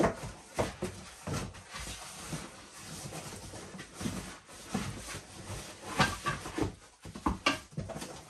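Cardboard box flaps rustling and scraping as a folded tripod is slid back into its carton, with a few sharper knocks, the loudest right at the start and about six seconds in.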